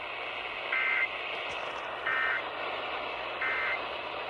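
Emergency Alert System digital data tones, three short identical bursts of a warbling two-pitch squawk about a second apart, over AM radio hiss. Bursts this short are the end-of-message code that closes an EAS alert.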